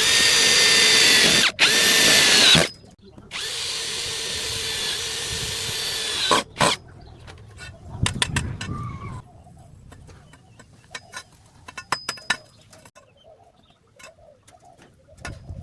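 Electric drill motor whining at high speed in short runs. It is loudest for the first two and a half seconds, with a brief stop after about a second and a half. It then runs more quietly and steadily for about three seconds before stopping, and scattered clicks and knocks follow.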